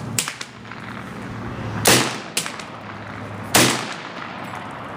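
SKS semi-automatic rifle (7.62×39 mm) firing, with two loud shots a little under two seconds apart, each ringing out briefly over the range. Fainter, sharper cracks come near the start and just after the first shot.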